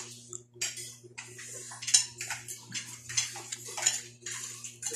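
Close-up eating sounds: irregular chewing, with small clicks and scrapes of fingers and fried fish on a plate, and one sharper click about two seconds in.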